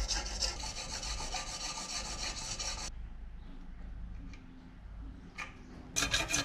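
Hand file rasping back and forth on the end of a brass rod clamped in a bench vise, being shaped into a new carburettor choke shaft; the filing stops about three seconds in. After a quieter stretch with a couple of light clicks, a hacksaw starts sawing through the brass rod near the end.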